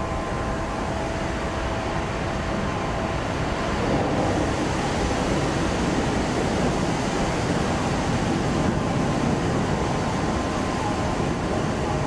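Steelworks noise: a steady, dense rushing roar as red-hot metal is doused and throws up clouds of steam, swelling about four seconds in.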